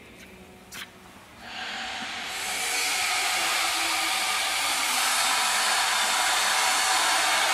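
Loud steady hiss from the milk pasteurizing plant's equipment. It swells in about a second and a half in, over a low machine hum, and holds steady; a single click comes just before it.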